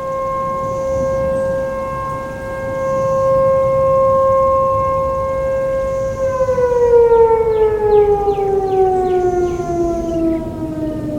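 Sentry 14V-B outdoor warning siren sounding one steady tone. About six seconds in, its pitch starts to fall smoothly as the siren winds down.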